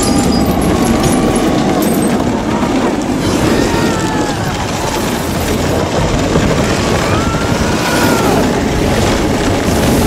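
Film sound of an avalanche: a loud, continuous rumble of rushing snow and ice. A few high gliding tones rise and fall over it, once near the middle and again toward the end.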